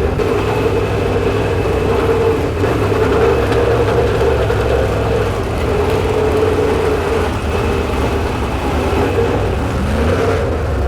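Vehicle engines running in a steady drone over a low rumble.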